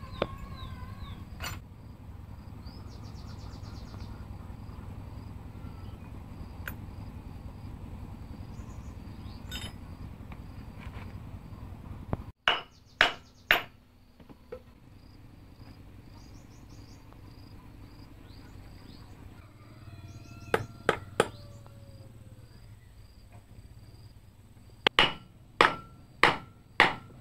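Hammer blows on a wooden block set against a small engine's cylinder head, in three bursts: three sharp knocks about halfway through, three more a little later and five quick ones near the end. Insects chirp faintly throughout.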